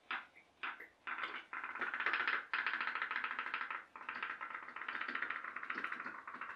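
Firelighter-heated pop-pop boat boiler putting: a few separate pops, then from about a second and a half in a rapid, continuous putt-putt as the boat gets under way.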